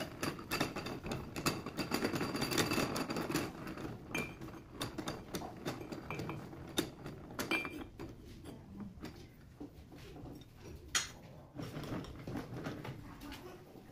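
Steel parts clattering and scraping as a sprocket and a steel tube are handled and fitted into a lathe chuck, busiest in the first few seconds, with a few sharp metal clinks that ring briefly later on.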